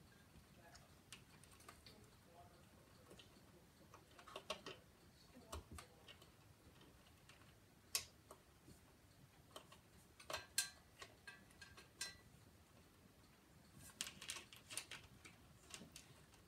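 Faint, irregular clicks and light metallic clinks of small hard parts or tools being handled. A cluster comes about four seconds in, sharper single clicks near eight and ten seconds with a short ring, and a busier run of clicks near the end.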